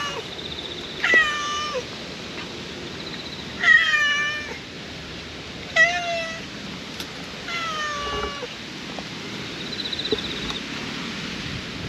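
An orange-and-white cat meowing four times, about two seconds apart, each meow falling in pitch.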